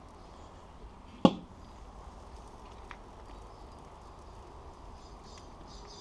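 A single sharp metal clank about a second in, with a short ringing decay: the domed steel lid of a PRO-Q Excel 20 bullet smoker being set down.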